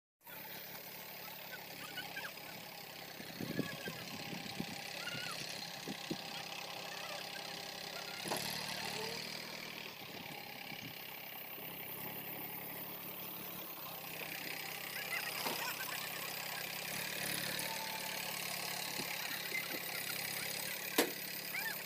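Massey Ferguson 1035 DI tractor's three-cylinder diesel engine running steadily at low revs while pulling a trailer loaded with logs, with a few knocks from the rig.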